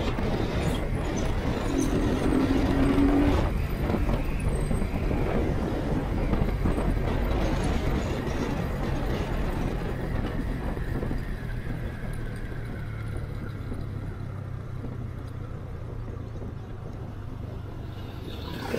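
Motorcycle engine running with wind rush, heard through a microphone inside the rider's helmet. A short steady tone sounds about two seconds in, and the engine grows gradually quieter over the second half.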